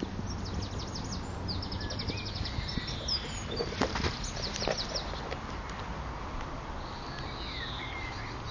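Small songbirds singing: rapid high trills and short downward-sliding chirps, over a steady low background rumble. A few sharp clicks come about three and a half to five seconds in.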